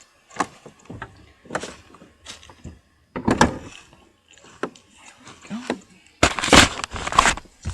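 Irregular knocks and clunks of handling, with a louder stretch of clatter about six seconds in.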